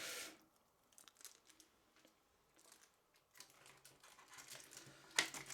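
Faint handling noise of the unboxing: light plastic crinkling and a few small clicks as the charger's packaging contents are handled, mostly quiet in between.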